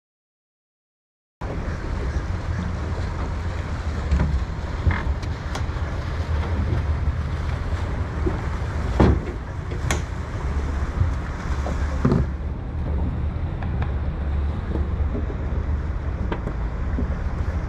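Mercury 300 hp V8 outboard running at low speed, heard with wind buffeting the microphone and water washing along the hull. It cuts in suddenly after a second and a half of silence, with a few brief louder thumps near the middle.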